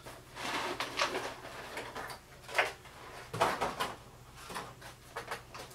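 Plastic packaging being handled: several short scrapes, clicks and knocks of a plastic tray and box being lifted and opened.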